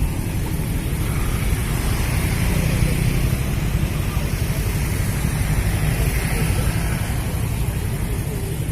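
Steady street noise of traffic with a low rumble and a faint murmur of voices; no firework bangs.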